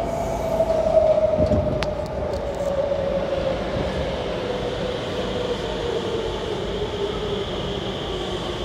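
R151 metro train pulling in along the platform. Its motor whine falls steadily in pitch as it slows, over the rumble of wheels on rail, with a few sharp clicks about two seconds in.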